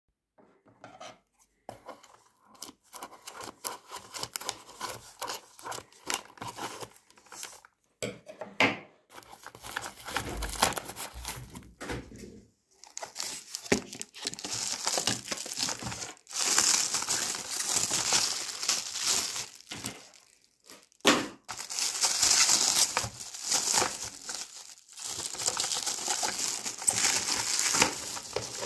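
A cardboard parcel box being opened by hand, with scattered scrapes, knocks and tearing of its tape and flaps; from about halfway through, a thin black plastic wrapping bag crinkles and rustles loudly as it is handled and pulled open.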